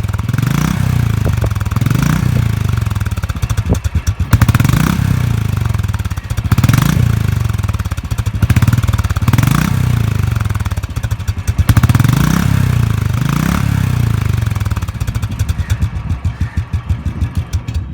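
Royal Enfield 350cc single-cylinder engine running through its stock exhaust silencer, revved in repeated short throttle blips every second or two. Near the end it settles back to an even idling thump.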